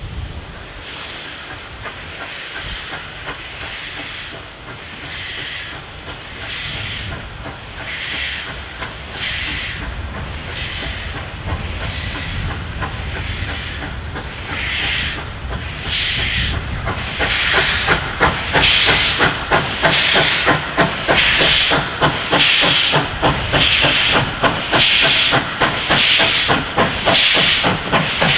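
Victorian Railways K class 2-8-0 steam locomotive K160 working under steam, its exhaust chuffing in a regular beat. The chuffs grow steadily louder as it approaches, and in the second half they come quicker and sharper, about one and a half a second.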